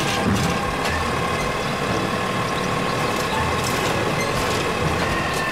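Automated side-loader garbage truck running steadily, with a faint high tone, as its hydraulic arm grabs a wheeled trash cart and lifts it to empty.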